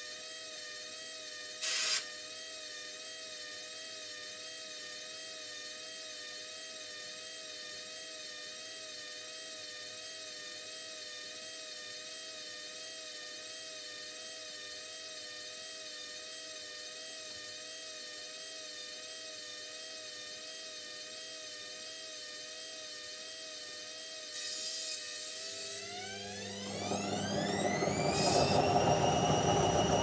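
Indesit front-loading washing machine's drum motor whining steadily at low speed, with a brief noise about two seconds in. Near the end the motor speeds up into the spin: the whine rises steeply in pitch and grows much louder.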